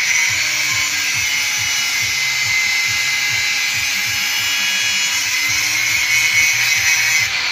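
Handheld electric angle grinder running steadily under load, its abrasive disc grinding steel, a little louder near the end.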